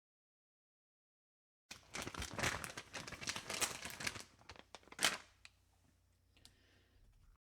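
Crinkling and rustling of a thin material being handled: dense crackly rustling for about two and a half seconds, a single sharp crackle about five seconds in, then faint handling noise.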